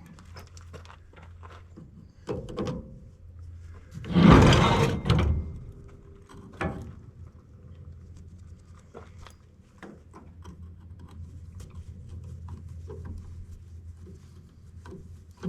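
Scattered clicks and knocks of a screwdriver and metal parts being handled while a scrap machine is dismantled by hand, with one louder clatter about four seconds in, over a steady low hum.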